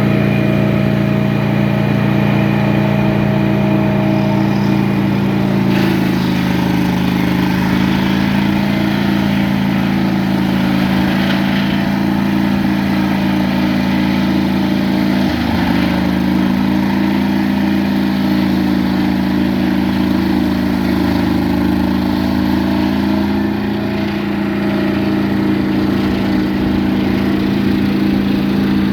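Engine of a Mighty Mite circular sawmill running steadily while it cuts boards into trim. About six seconds in its pitch drops a little and a rasping cutting noise comes up as the blade takes load. Its note sags and recovers briefly about halfway through.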